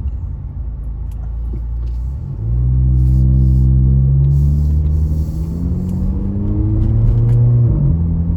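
Volkswagen Jetta Mk7's turbocharged four-cylinder engine with the resonator and muffler deleted, heard from inside the cabin. About two seconds in it gets louder and rises steadily in pitch as the car accelerates in a held gear, then the pitch drops with an upshift near the end.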